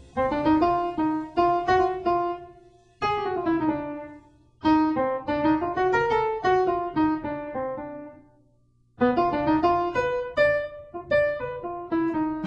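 Jazz piano playing solo in three short phrases of struck notes, with brief pauses between them.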